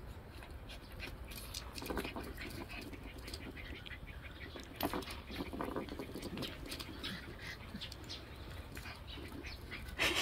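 A Jindo puppy tugging and chewing at a leash: short grunts now and then over faint scuffling and clicking on concrete.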